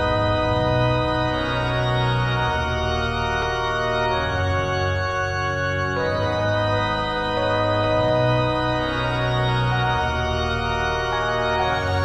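Background music of sustained, organ-like held chords that change about every one to two seconds.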